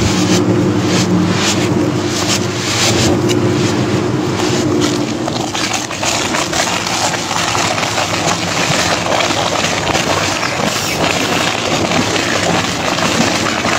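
Industrial twin-shaft shredder tearing up truck tyres: a steady heavy drive hum with knocks as the hooked cutters bite the rubber, turning to a rougher, denser grinding about five seconds in as a tyre is pulled into the blades.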